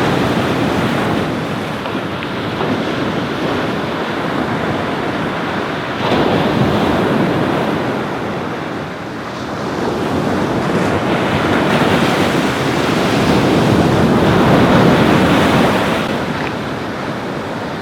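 Ocean waves breaking and washing on a beach, swelling and ebbing every few seconds, with wind buffeting the microphone.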